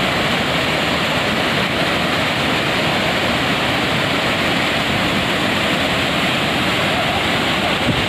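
Waterfall cascading over rocks: a loud, steady rush of falling and churning water.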